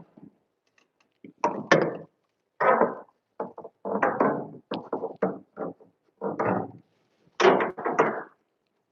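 Work handling noise: an irregular string of short knocks and thumps, about a dozen in all, with brief silences between them.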